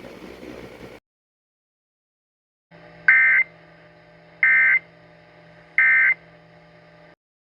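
Emergency Alert System end-of-message data tones: three short, loud bursts of digital warbling, each about a third of a second long and about 1.4 seconds apart, over a faint steady hum. They mark the close of the broadcast alert.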